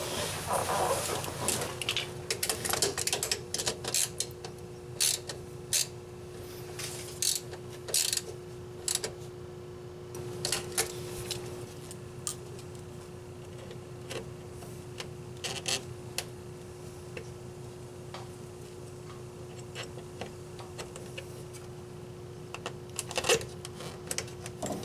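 Irregular clicks and light metallic clinks of pliers and spring hose clamps as the EVAP hoses are refitted, busiest in the first half, over a steady low hum.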